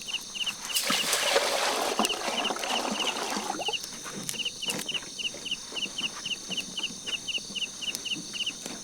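A small animal chirping in a fast, even series, about three short high chirps a second, over a steady high-pitched drone. A broad rushing noise rises over it from about a second in and fades out by the middle.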